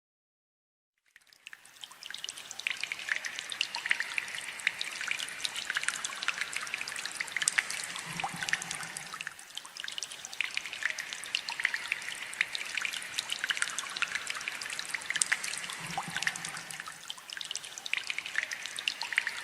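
Water trickling and dripping, a dense patter of many small splashes; it fades in about a second in.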